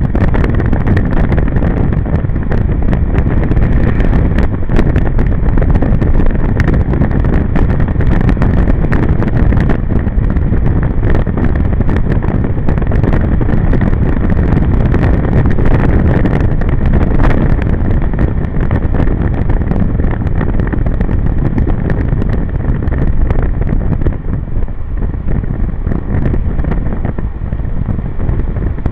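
Wind buffeting the microphone of a camera on a moving scooter, over the running engine and tyre noise on a wet road. The loud rush eases a little late on.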